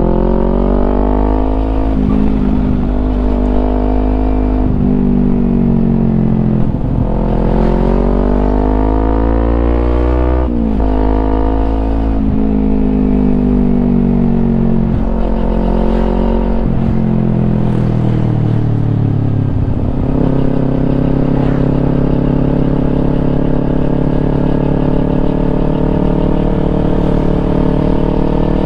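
Kawasaki Ninja 250 parallel-twin engine through a Yoshimura aftermarket exhaust, loud, with the revs climbing and dropping several times, including a sharp drop about ten seconds in. In the last third it holds a steady pitch.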